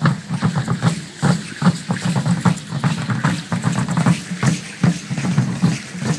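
Large upright wooden Aztec dance drums (huehuetl) beaten in a quick, even rhythm, two to three deep beats a second, with sharper clicking on top.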